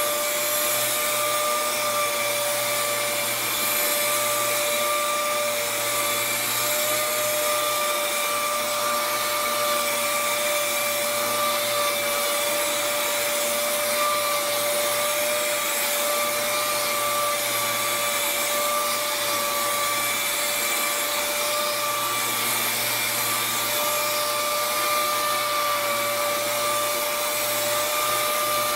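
Orbital sander with a 3M Hookit hook-and-loop pad and a 600-grit disc running steadily with a high whine, sanding a fiberglass truck cap to scuff it ready for paint.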